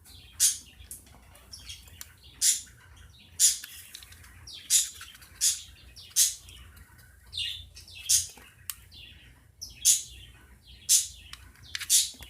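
A small bird chirping repeatedly: about a dozen short, high, falling chirps at irregular intervals of roughly a second.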